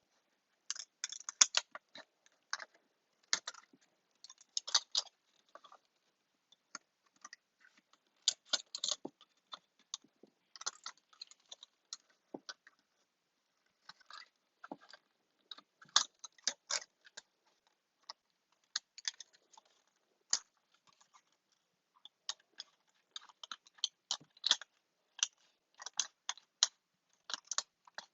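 Scissors cutting up the material into pieces: short, irregular snips with rustling, some louder than others, scattered through the whole stretch.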